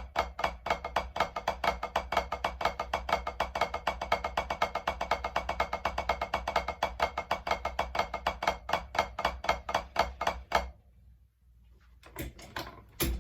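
Drumsticks playing a steady run of strokes, about six a second, demonstrating a flam spread apart into Swiss Army triplets and then into a double stroke roll. The run stops sharply near the end, followed by a few single strokes.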